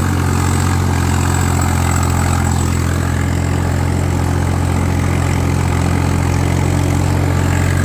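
Swaraj 843 XM tractor's three-cylinder diesel engine running steadily under load while pulling a disc harrow through the soil, its revs holding without dropping.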